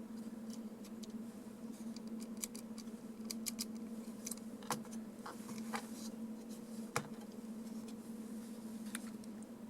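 Scattered light clicks and taps of small hard objects being handled, the sharpest knock about seven seconds in, over a steady low hum.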